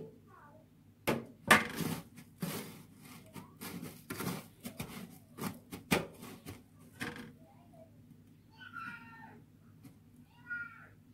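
Dry breadcrumbs crunching and rustling under hands on a metal baking tray as a shrimp is pressed and coated: a quick run of crisp scrapes lasting about six seconds. Two short high-pitched calls follow near the end.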